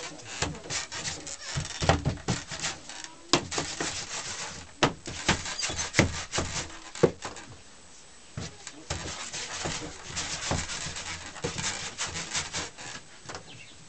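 Hands working bread dough on a floured wooden table, with irregular knocks and taps throughout.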